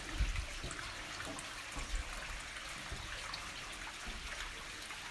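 Steady trickling of water, with a few dull knocks of boots on wooden ladder rungs near the start and about two seconds in.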